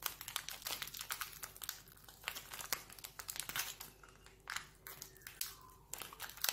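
A packet crinkling and tearing as someone struggles to get it open, with irregular crackles throughout.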